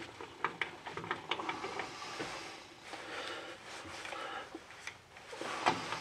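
Faint small clicks and rubbing of gloved hands handling bolts at a drum-brake backing plate, with a cluster of sharp little clicks in the first two seconds.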